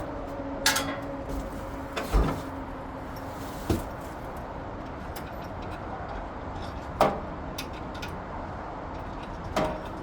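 Metal clunks and clinks of tools and loose engine parts being handled while unbolting the front accessories of an AMC 360 V8: five sharp knocks spread over the stretch, the loudest about two seconds in and about seven seconds in.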